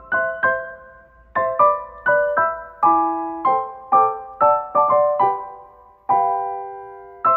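Background piano music: a gentle melody of struck notes and chords, each note fading, with a longer held chord about six seconds in.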